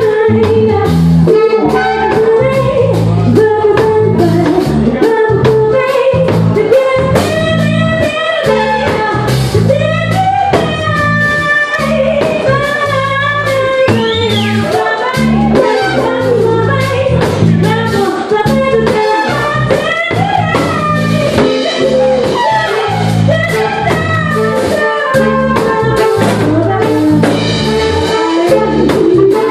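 Jazz-fusion band playing live: drum kit and a steady rhythmic bass part under a sliding melodic lead line.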